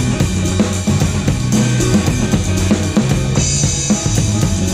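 Drum kit played live in a steady groove, heard close up over the kit, with kick and snare strokes on the beat and a band's bass line moving underneath.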